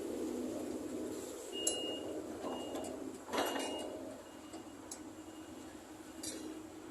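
A small motor whirring steadily and fading, with a few sharp clinks of hard pieces knocking together, the loudest about three and a half seconds in.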